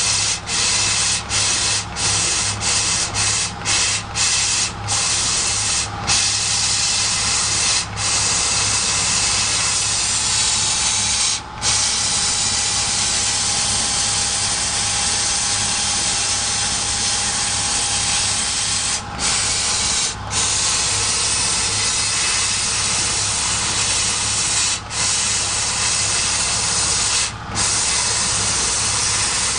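CO2 laser cutting machine cutting 4 mm wood: a steady hiss over a low hum, broken by brief dips, several in the first few seconds and a few more later on.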